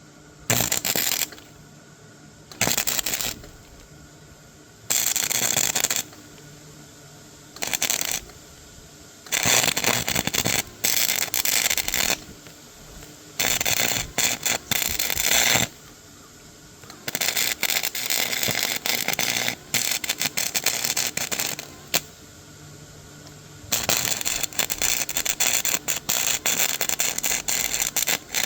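Hand tools and small metal parts being handled: on-and-off bursts of dense clicking and rattling, each lasting from under a second to a few seconds, with quiet gaps between.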